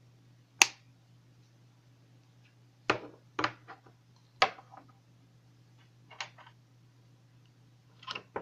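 Sharp clicks and taps of a hard plastic lighter-shaped e-liquid bottle and metal vape parts being handled and set down on a desk: one loud click about half a second in, a cluster of taps in the middle, and a quick double click near the end, over a faint steady low hum.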